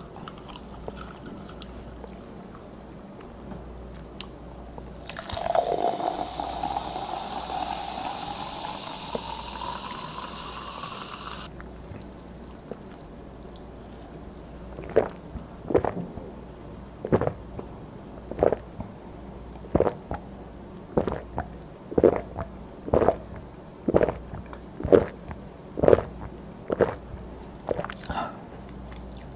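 Carbonated grape soda poured from a can into a glass mug, fizzing, its tone rising steadily as the mug fills until the pour stops abruptly. After a short pause come loud gulping swallows, about one a second, as the drink is downed.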